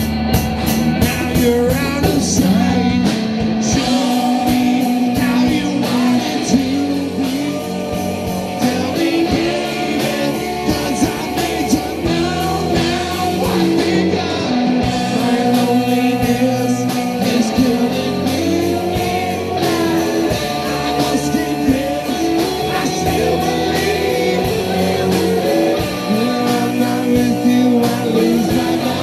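A live rock band playing: electric guitars, bass guitar and drum kit.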